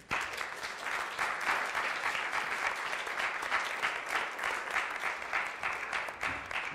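Audience applauding, breaking out all at once as the talk ends.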